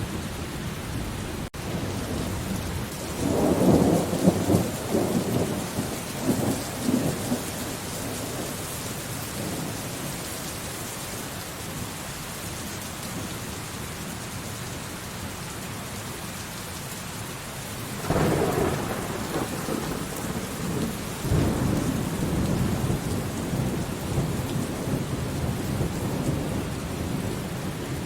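Steady heavy rain with rolling thunder. One long rumble swells about three seconds in and dies away over several seconds, and a second rolls in about eighteen seconds in.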